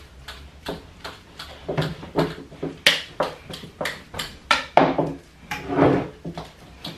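Fork clicking and scraping against a mixing bowl while mashing bananas for fritter batter: a run of irregular taps.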